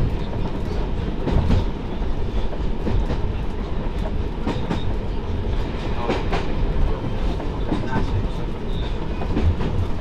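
Cab-interior sound of the Derby Lightweight single-car diesel railcar M79900 'Iris' under way. A steady diesel and running drone is heard, with the wheels clicking over rail joints at irregular intervals.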